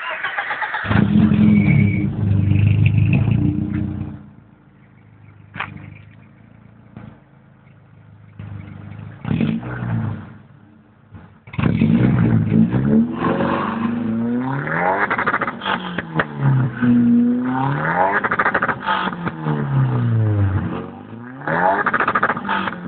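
BMW 518i E34's M40B18 1.8-litre four-cylinder engine heard through its exhaust. It runs loudly for the first few seconds, then settles to a steady idle with a couple of short blips. From about twelve seconds in it is revved again and again, the note rising and falling with each rev.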